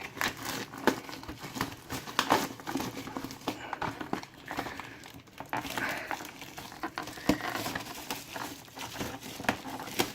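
Plastic wrapping crinkling, crackling and tearing as it is pulled off a trading-card collection box, in irregular rustles throughout.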